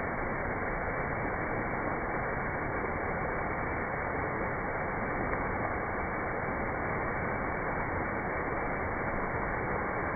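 Waterfall pouring close by: a steady, unbroken rush of falling and splashing water.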